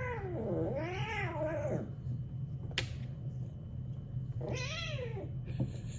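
Domestic cat meowing: a long meow that dips and rises again, ending about two seconds in, then a second, shorter meow about four and a half seconds in. A single sharp click falls between them, over a steady low hum.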